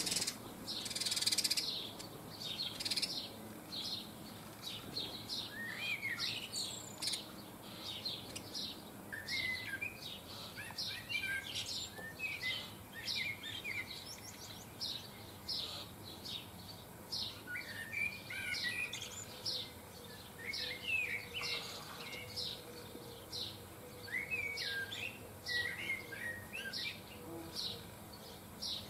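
Small garden songbirds chirping and twittering: many short, high chirps repeated about once or twice a second, mixed with runs of quicker warbled notes. A short rustling burst comes just after the start.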